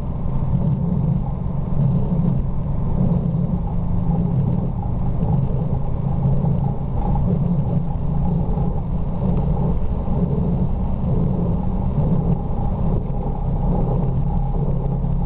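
Airliner cockpit noise during the runway roll: a steady, loud low rumble of engines and wheels on the runway, heard inside the flight deck.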